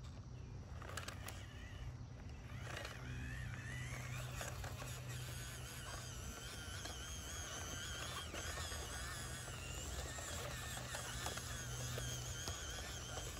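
Whine of the small electric motor and gears of a 1/18 scale RC crawler, rising in pitch about two seconds in and then wavering up and down as the throttle varies, over a steady low hum.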